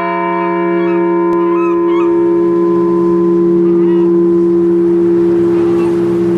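Memorial bell ringing on after a single strike: its higher overtones fade away over the first couple of seconds while a low, steady hum holds on.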